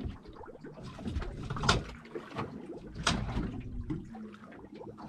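Scattered knocks, clicks and rustling of gear being handled on a small fishing boat, with two sharper knocks about one and a half and three seconds in.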